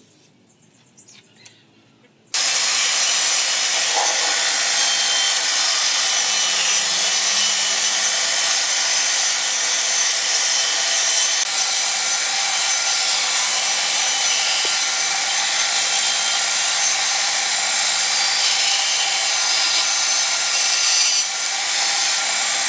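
Band saw running and cutting through the wooden planks of a cable reel top, a steady loud hiss of blade in wood that starts abruptly about two seconds in.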